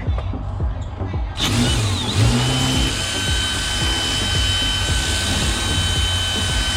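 Power drill starting about a second and a half in and running at a steady high whine, working on a corroded, seized part of an old exit device.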